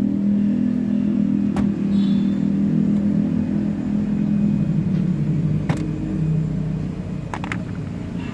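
Toyota HiAce van's engine idling, a steady low hum that slowly fades toward the end, with a few sharp clicks.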